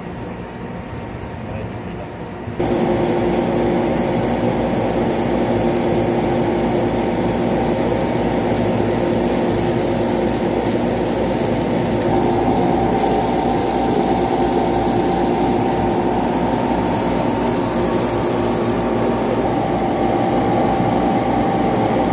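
High-voltage arcing and corona discharge around a laser tube's connector and high-voltage lead: a loud, steady buzzing crackle that comes in suddenly about two and a half seconds in. It is the sign of a damaged or dirty high-voltage connection, where the current ionises the air and jumps around the contact.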